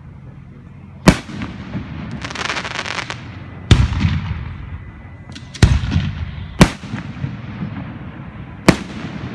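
Aerial firework shells bursting: five loud bangs one to two seconds apart, each trailing off in a rolling echo, with a spell of crackling about two seconds in.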